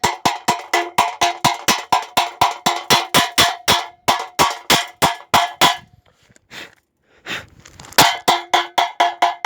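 Rapid metal-on-metal strikes, about six or seven a second, each ringing from the steel: a hammer chipping the slag off a fresh stick weld. The chipping stops about six seconds in and starts again about two seconds later.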